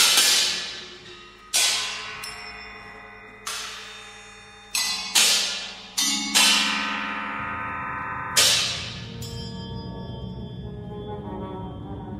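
Contemporary ensemble music: a series of struck metal percussion strokes, bells and gongs, each ringing out and decaying slowly, over held low tones. About eight strikes come at uneven intervals; after about eight and a half seconds they stop and a wavering held low tone carries on.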